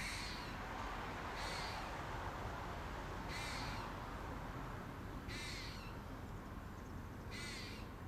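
Crow cawing from a tree, five single caws about two seconds apart.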